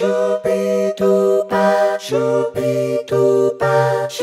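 Yamaha PSR-E473 keyboard playing a choir-like vocal voice: sustained chords struck about twice a second, with the chord and bass moving lower about two seconds in.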